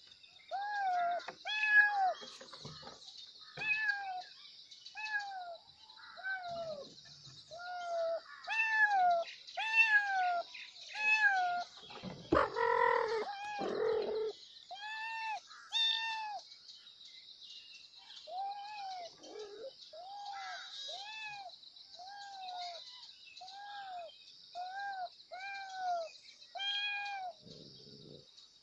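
Kittens mewing over and over: short, high-pitched mews that rise and fall, about one to two a second, with a louder, rougher meow about halfway through. A steady high hiss runs behind.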